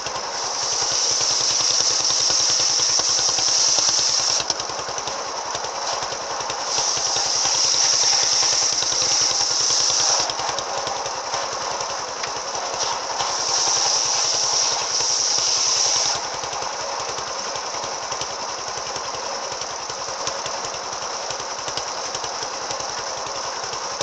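Two-stroke brush cutter fitted with an AKM circular saw blade, run up to high speed three times, for about four, three and three seconds, and easing back to a lower speed between the spells and for the last eight seconds.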